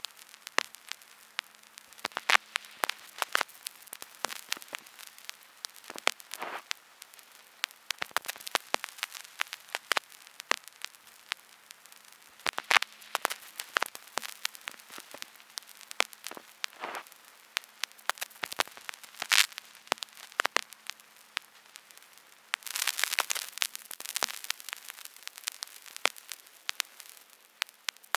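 Vinyl record surface noise with no music: a soft steady hiss under irregular clicks and pops, denser for a couple of seconds near the end, over a faint steady low hum.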